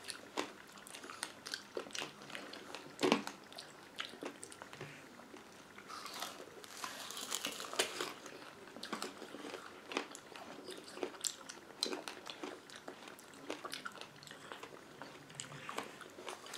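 Candy apples being bitten and chewed, the hard red sugar shell cracking and crunching over the apple flesh, with the sharpest crack about three seconds in.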